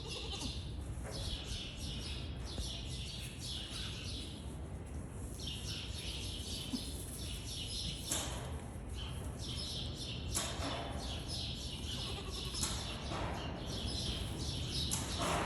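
Small birds chirping in quick repeated high notes over a steady low rumble, with a couple of brief knocks partway through.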